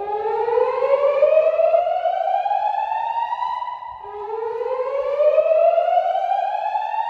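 Fire alarm voice evacuation system (NFS2-3030D panel with DVC) sounding its whoop evacuation tone through Gentex speakers: two slow rising sweeps, each climbing for about three and a half seconds, the second starting about four seconds in.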